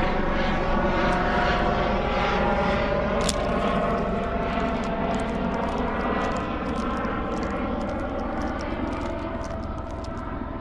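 Propeller airplane engine passing by: a steady drone made of several tones that slowly drifts lower in pitch and fades a little toward the end, with faint scattered clicks over it.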